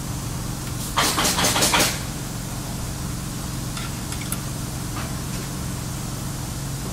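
A quick burst of about five rattling metal strokes lasting about a second, from tool work on a scooter's compression clamp and bolts as they are loosened, then a few faint ticks, over a steady low hum.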